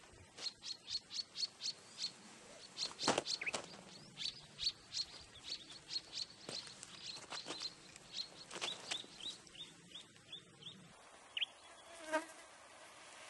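A rapid series of short, high chirps, several a second, with a faint buzz of flies under it. The loudest sound is a single thump about three seconds in, as the canvas swag is dropped to the ground.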